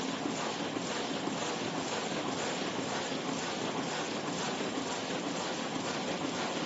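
1998 Bobst 102 BMA hot foil stamping press running: a steady, dense mechanical clatter with a faint regular beat about twice a second.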